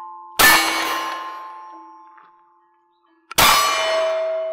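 Two 9mm shots from a Beretta CX4 Storm pistol-caliber carbine about three seconds apart, each followed by a long metallic ring of steel targets being hit. The two rings differ in pitch, as from two different plates.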